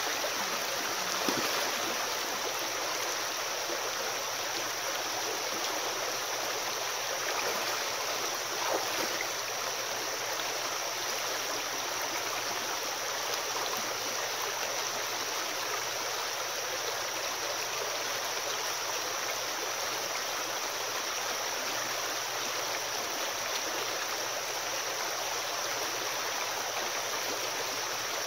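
Shallow, rocky creek running steadily over stones, with a couple of brief splashes from wading in the first several seconds.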